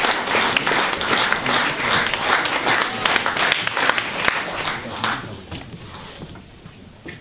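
Audience applauding, a dense run of handclaps that dies away about five to six seconds in.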